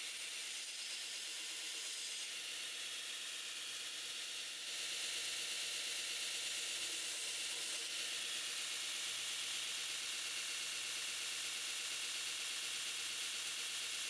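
Belt grinder running with a 1095 steel knife blade held against the belt while the bevel is ground: a steady hiss, a little louder from about four and a half seconds in.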